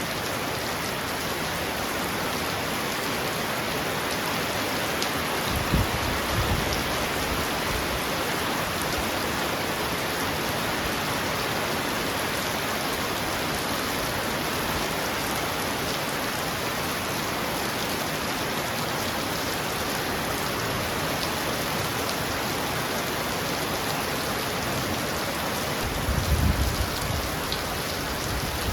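Heavy rain falling on a roof, a steady dense hiss of drops. Two short low rumbles rise above it, about six seconds in and again near the end.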